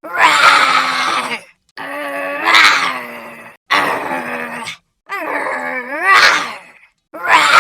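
Cute cartoon monster voice sound effect: a string of about five short, pitched creature calls, each a second or two long with the pitch bending up and down, separated by brief pauses.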